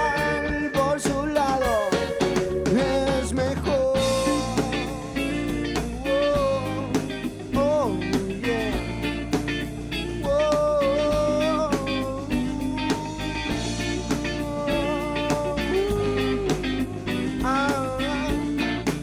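Live band playing a song: a lead guitar melody with bent notes over bass and drums.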